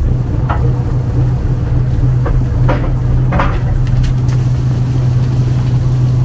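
Fishing boat's engine running in a loud, steady low drone, with a few brief sharper sounds over it.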